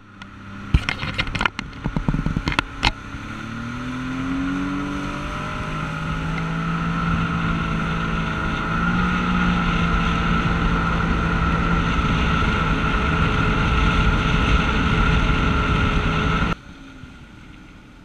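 Sea-Doo jet ski engine under throttle, heard from the rider's seat. A few sharp knocks come in the first three seconds, then the engine's pitch rises as it speeds up, and it runs steadily at speed. The sound drops away abruptly near the end.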